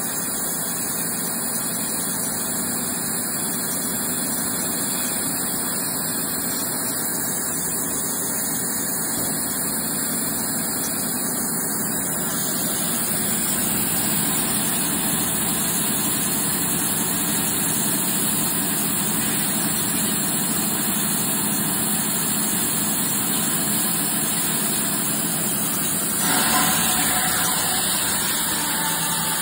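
Wirex CZP-2 log-squaring band saw running with a steady machine hum as a log is fed along its conveyor. About 26 seconds in the sound turns louder and brighter as the log reaches the band blade.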